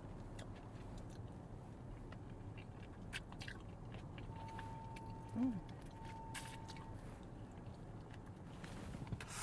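A person chewing and biting food close to the microphone, with scattered small crunchy clicks and a short hummed 'mm' about halfway through.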